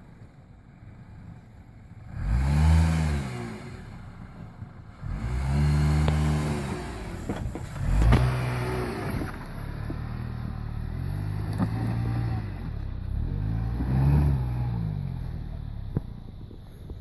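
A car engine revved hard in about five surges, each rising and falling in pitch over a second or two. A sharp click comes near the end.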